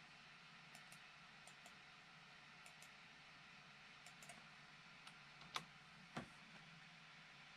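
Quiet clicks of a computer mouse and keyboard over a low room hiss: several faint clicks, mostly in quick pairs, then two sharper, louder clicks about two-thirds of the way through.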